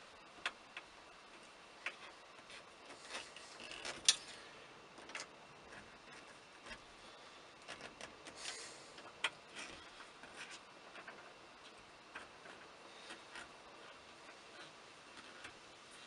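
Scattered light clicks and taps of small steering-column parts being handled and pressed into place by hand, with sharper clicks about four seconds in and again about nine seconds in, and a brief rustle between them.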